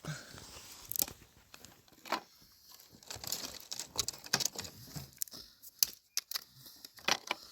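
Irregular rustling and crinkling with scattered sharp clicks and knocks, like things being handled.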